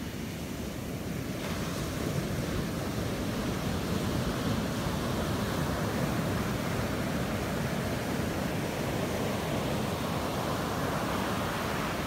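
Pacific surf breaking and washing up a sandy beach: a steady rushing hiss of waves and foam.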